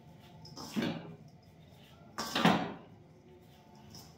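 Hands rubbing a ghee-and-flour bait mix in a stainless steel bowl, working the ghee lumps into the flour between the palms. Two rubbing swishes, one about a second in and a louder one about two and a half seconds in.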